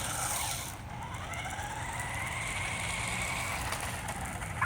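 Small electric motors of toy remote-control cars whining as they drive, with a steady hiss underneath. About a second in the whine rises in pitch, then holds steady before fading near the end.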